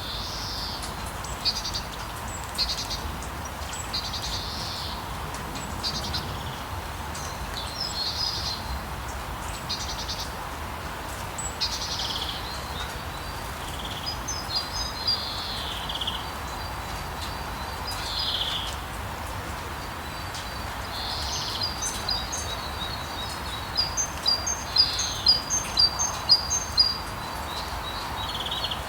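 Steady rain hiss in a street with birds singing over it: separate high calls every second or two, then, about two-thirds of the way through, a quick run of short high notes, about two a second.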